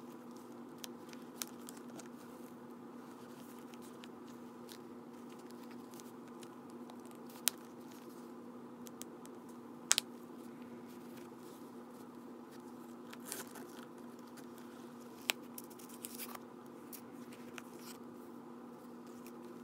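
Handling noise from a Coach Tabby Medium Wallet, signature jacquard canvas with leather trim, as it is opened, turned and closed: soft rustles and a handful of sharp clicks. The loudest is a double click about ten seconds in, as the brass snap tab is pressed shut. A steady low hum runs underneath.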